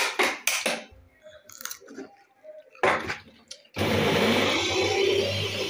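A few knocks and clicks as the plastic parts of an electric juicer are handled and the pusher is pressed in. About four seconds in, its motor starts suddenly and runs steadily with a whirring hum while it juices.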